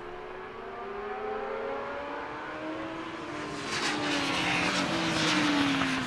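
Racing motorcycle engine coming closer along the circuit and growing louder, its pitch climbing through the revs and then falling in the second half.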